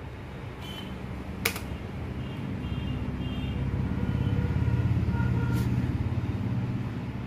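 Low rumble of a road vehicle passing by, swelling to its loudest about five seconds in and then fading. A single sharp click comes about a second and a half in.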